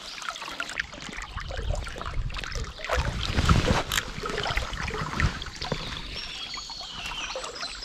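River water splashing and running around a large hooked trout being played on a fly line.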